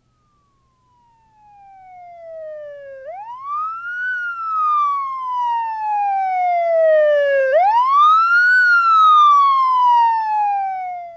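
A siren wailing: it fades in on a falling tone, then twice sweeps quickly up and slowly down, each fall lasting about three and a half seconds, growing louder toward the second peak.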